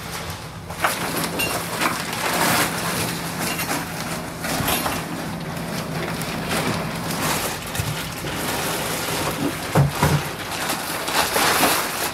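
Black plastic garbage bag rustling and crinkling as it is carried and handled, with many small crackles and knocks.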